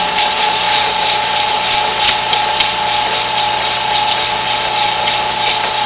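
Drill press running steadily with a metal flagpole tube spinning in its chuck, hand-sanded with 220-grit sandpaper: a steady motor hum and tone under an even hiss of paper on the turning metal.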